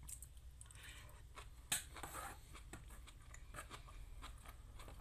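A person chewing a mouthful of noodles, with soft wet mouth sounds and many small clicks. One sharper click comes a little under two seconds in.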